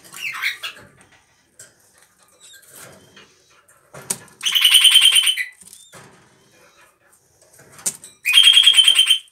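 Kakariki (red-crowned parakeet) giving two loud, rapid chattering calls, each about a second long, about four and eight seconds in.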